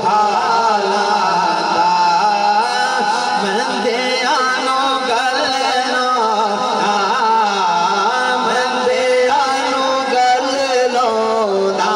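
A man singing a naat in long, wavering, ornamented lines over a steady low drone.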